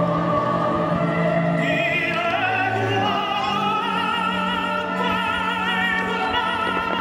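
Operatic music: a singer holds long notes with a wide vibrato over sustained orchestral accompaniment, the soundtrack of a fireworks show.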